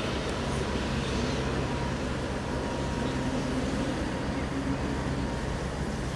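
Boat engine running steadily: a low, even drone over a wash of water and wind noise.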